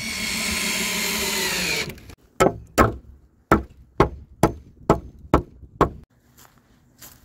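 A cordless screwdriver runs for about two seconds driving a screw into a wooden fence board, its pitch falling slightly as it loads. It is followed by about eight sharp hammer blows on wood, a little under half a second apart.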